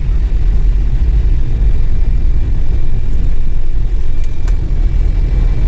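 Truck engine and road noise heard from inside the cab while driving: a steady low rumble, with a faint steady high whine over it.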